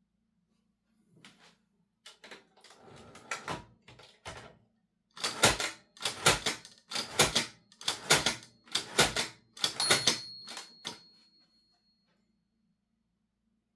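Olivetti Linea 88 manual typewriter clacking: a few light mechanical clicks, then about eight loud, evenly spaced strikes a little under a second apart.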